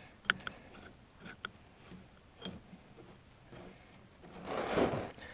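Hand tools and metal parts being handled: a few sharp clicks and taps, then a brief rustling scrape about four and a half seconds in, the loudest sound.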